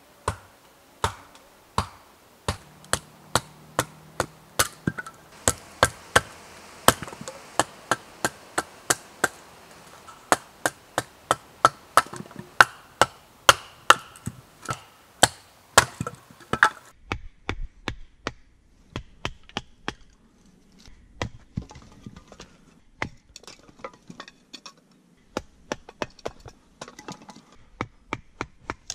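Splitting kindling with a wooden baton and blade: a long series of sharp wooden knocks, about two a second and fairly even, turning quieter and more irregular about two-thirds of the way through.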